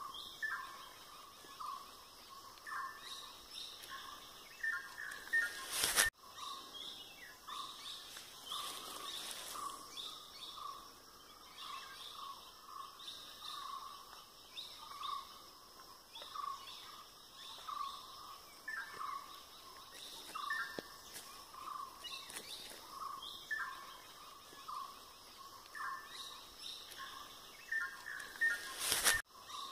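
Several birds calling and chirping in a plantation, led by a short call repeated about once a second. A sharp click cuts through about six seconds in and again near the end.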